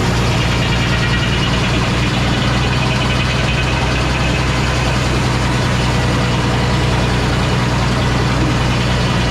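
A heavy engine running steadily at a constant speed.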